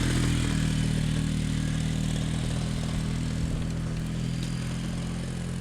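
An engine running steadily at an even speed, slowly getting a little quieter.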